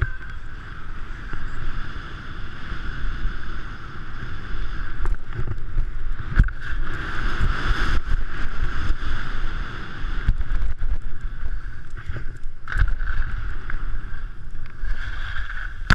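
Skis sliding and scraping over hard-packed snow during a downhill run, with wind buffeting the camera's microphone. A couple of sharp knocks, about halfway through and again near the end.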